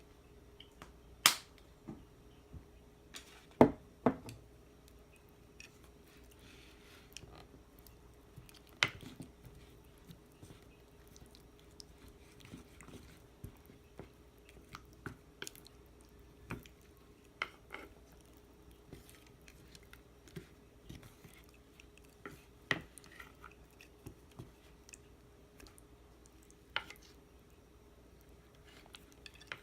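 Kitchen food-preparation sounds: scattered clicks and knocks of utensils and containers being handled, with a few sharper knocks, over a faint steady hum.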